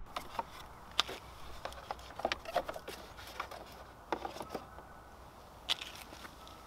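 Plastic clips and trim of a second-generation Chrysler 300's lower grille clicking and rubbing as the assembly is unclipped and lifted off the plastic bumper cover. A handful of faint, sharp clicks, the clearest about a second in and near six seconds.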